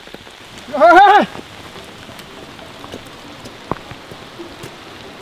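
Steady rain falling, with a single short voiced call that rises and falls about a second in.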